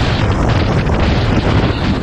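Loud, steady wind noise buffeting the microphone, heaviest in the low end, drowning out other sound.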